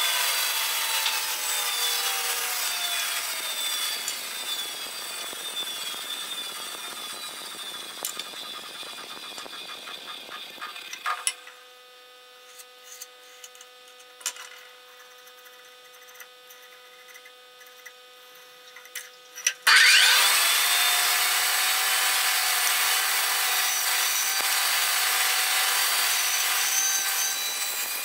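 Band saw winding down after being switched off, its whine falling in pitch and fading over about ten seconds. A few light knocks of wood being handled follow in the quiet. About twenty seconds in, the saw is switched back on, whines up to speed and runs steadily as a wooden blank is fed through the blade.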